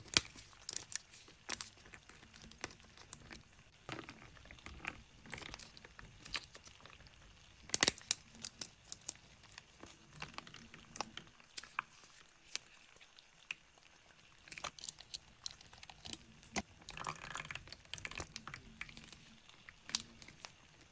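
Handling of plastic food packaging and containers: scattered crinkling and light clicks and taps, with one sharper click about eight seconds in.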